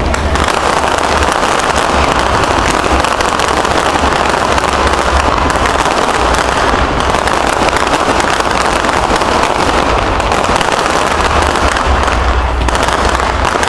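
Fireworks going off in a dense, unbroken barrage of crackles and pops.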